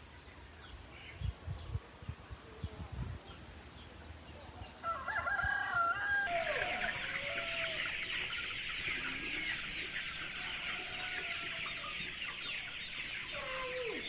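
A rooster crows about five seconds in. After it comes a dense, steady chorus of peeping and clucking from a large flock of young chickens, about five weeks old, crowded in a barn. A few low thumps are heard in the first three seconds.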